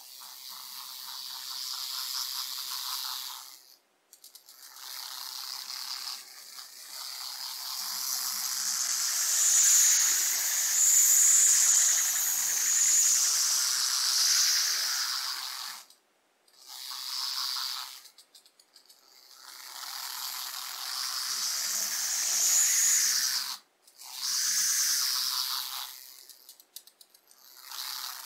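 The tiny 4.1 mm DC drive motor and gears of a 1/87-scale radio-controlled Smart Fortwo, whining with a high-pitched buzz. The whine comes in runs of a few seconds that stop and start again as the car drives and halts, its pitch rising and falling with speed.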